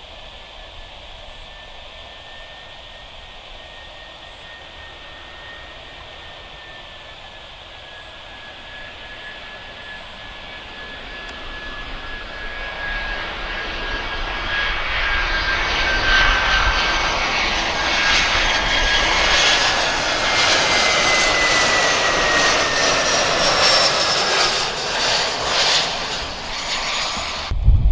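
Airbus A320 jet airliner on final approach: a steady high engine whine over a rising jet rumble that grows much louder as the plane comes close and passes by, the whine dipping slightly in pitch as it goes past. The sound cuts off suddenly near the end.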